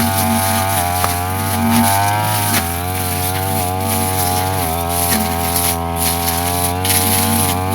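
Brush cutter's small petrol engine running at high speed while cutting grass, its pitch sagging under load twice, about two and a half and four and a half seconds in, and picking back up.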